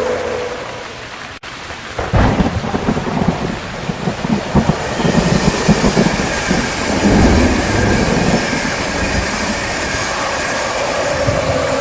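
Rain falling steadily, with a long rolling rumble of thunder that starts about two seconds in and goes on for several seconds before fading.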